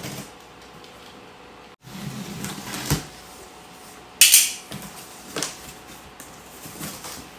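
A cardboard box being opened and its packed parts handled: scattered knocks and clatter, with one loud rasping scrape of packaging about four seconds in.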